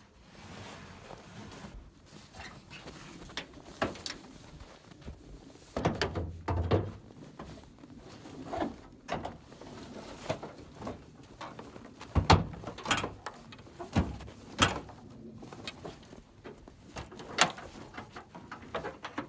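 Chevrolet Silverado pickup tailgate being opened and shut several times to test a newly fitted latch handle: a series of sharp clunks and latch clicks.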